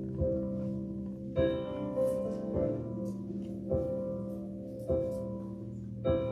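Church keyboard or piano accompaniment playing sustained chords that change about every second, in an instrumental break of a slow gospel song, with light percussion strikes over it.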